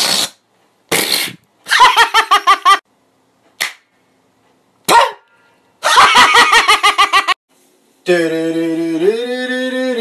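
A man laughing loudly in several separate fits, each a rapid pulsing cackle; about eight seconds in, music with long held notes begins.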